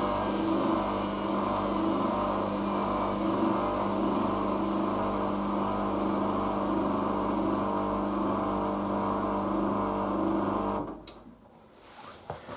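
Hoover DYN9144D3X washing machine in its final spin, the drum motor running with a steady hum and whirr, then cutting out abruptly about 11 s in as the spin ends, leaving near quiet with a faint knock or two.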